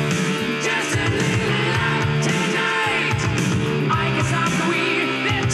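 Rock music playing from loudspeakers in the room, with a steady beat and a wavering melody line.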